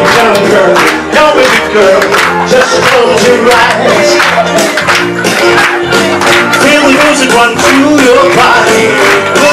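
Upbeat pop backing track with a steady beat, played loud, with guests clapping along.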